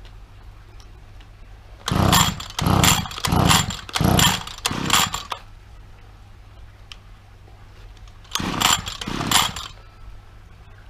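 Petrol string trimmer being pull-started: five quick yanks of the recoil starter cord, then two more after a pause, the engine turning over without catching because its ignition switch is still off.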